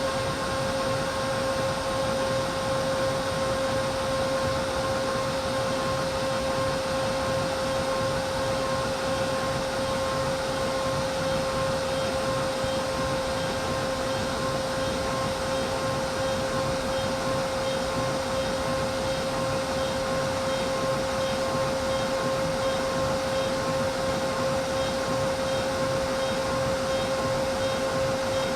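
CNC machine running steadily: a constant high whine over an even rushing noise, with a faint pulsing tone in the upper range from about halfway through.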